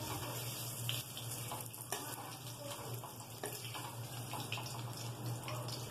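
Cubed onion and capsicum frying lightly in oil in a kadai: a soft, steady sizzle with a few light taps, typical of stirring with a spatula.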